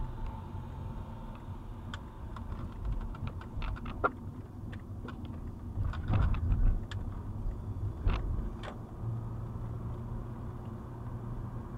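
A car driving, heard from inside the cabin: a steady low road and engine hum with light rattling clicks, densest about two to five seconds in, and a few louder knocks around the middle of the turn.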